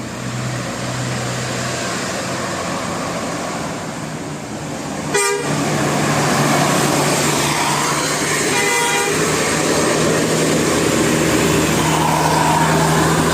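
A bus's telolet multi-tone horn tooting over a running bus engine. There is a sharp blast about five seconds in, after which the horn and engine sound louder.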